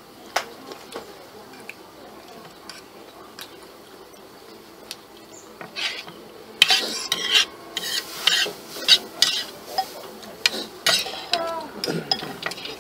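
Metal fork and spoon scraping and clinking against a ceramic plate while scooping up rice. It starts as occasional taps, then about halfway through becomes a louder, busy run of scrapes and clinks.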